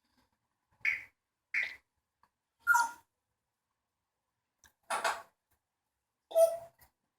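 African grey parrot giving a series of short calls, five in about six seconds. Some are clear whistles and others are harsher squawk-like sounds.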